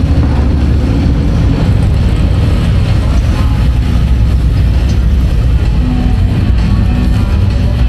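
Motorcycle engines running steadily as a string of bikes rides past on the street, with music playing along with them.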